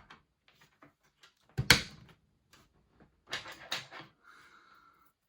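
Handling noises of DDR2 RAM sticks being fitted into the memory slots of an HP dc5800 desktop: scattered plastic and metal clicks and knocks. There is one sharp loud knock about a second and a half in, and a brief clatter about three and a half seconds in.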